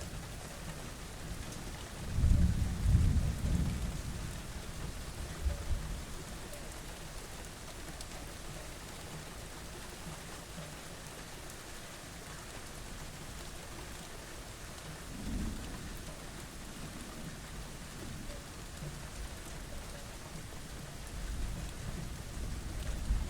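Steady rain with rolling thunder. A loud deep rumble comes about two seconds in and lasts a couple of seconds, a shorter one about halfway through, and another builds near the end.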